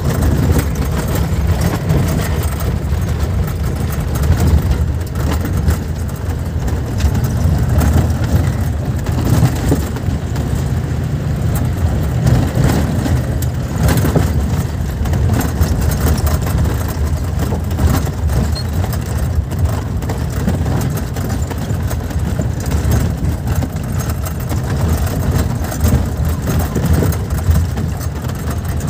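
Steady vehicle engine and tyre drone heard from inside the cab while driving on a rough unpaved dirt road, with scattered jolts and rattles from the bumpy surface.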